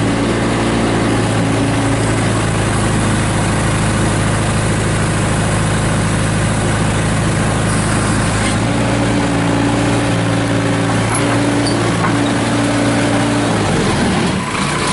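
Case 580 Super E backhoe loader's Cummins diesel engine running steadily, its note shifting about halfway through and dropping near the end.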